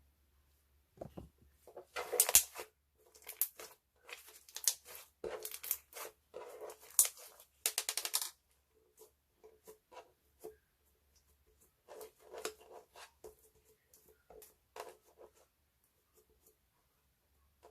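Clear slime being mixed and squished, with sticky clicking and crackling pops in dense bursts for the first several seconds, then sparser clicks.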